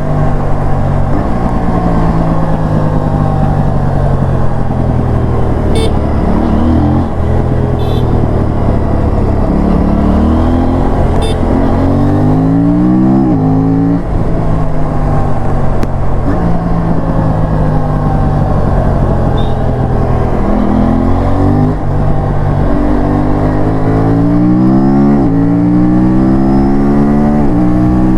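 Aprilia parallel-twin sport bike engine pulling hard. Its pitch climbs through the revs and drops sharply at each upshift, in two runs of several quick gear changes, with steadier running and easing off between them.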